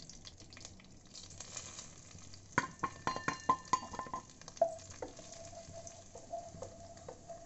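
Ground spices sizzling faintly in hot oil in a kadai, with a quick run of sharp metallic knocks a little over halfway through as the spices are scraped off a steel plate with a wooden spatula, followed by a few lighter taps.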